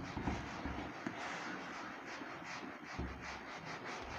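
A foam whiteboard duster rubbing across a whiteboard: a run of short, quiet scrubbing strokes as writing is wiped off.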